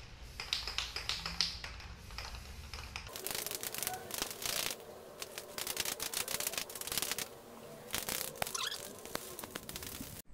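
Aerosol can of clear varnish, rattling as it is shaken for the first three seconds, then sprayed in three hissing bursts, the longest about two seconds.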